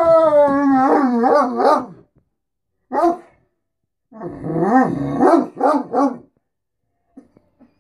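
A Great Dane 'talking': long wavering calls that rise and fall in pitch. There is a run of about two seconds, a short single call about three seconds in, then another run of several calls. It is the demand noise the dog makes for food and attention.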